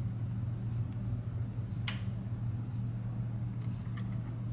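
A plastic spudger prying a flex-cable connector on a smartphone logic board: one sharp click about two seconds in, then a few fainter ticks near the end. A steady low hum runs underneath.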